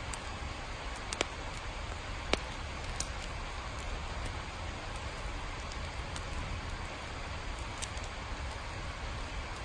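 Steady rain hiss with a low rumble underneath and a few sharp single taps of drops, the loudest about two seconds in.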